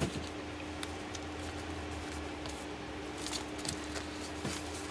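Paper envelopes being handled and shifted: faint rustles and a few light taps, most of them a little past three seconds in, over a steady low hum.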